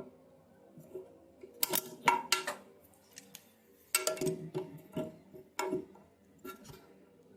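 Pliers gripping and turning the plastic nut on a toilet fill valve's threaded shank: sharp clicks and knocks in short clusters with pauses between, the final snugging after hand-tightening.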